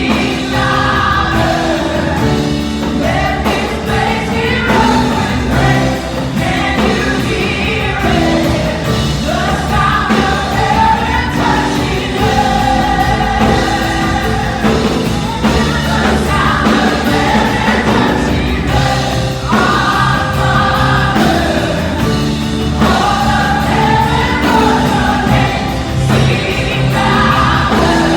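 Gospel worship song: voices singing a flowing melody together over instrumental accompaniment with sustained bass notes.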